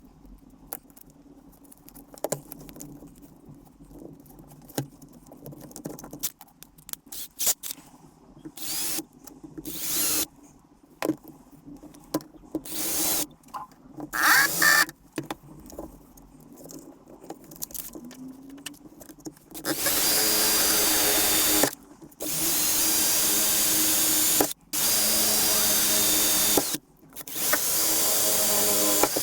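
Handheld power tool starting up in short whirs among scattered clicks and taps, then running in four bursts of about two seconds each through the second half.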